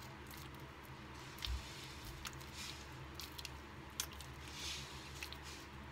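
Faint wet squishing of bare hands kneading and squeezing a ball of homemade butter, working in salt and pressing out the last of the buttermilk. A few soft clicks and a low thump about a second and a half in.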